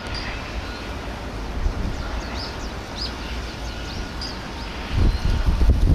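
Wind buffeting the microphone with a steady rumble, and a heavy gust about five seconds in that is the loudest thing heard. Several short, high bird chirps come through in the first few seconds.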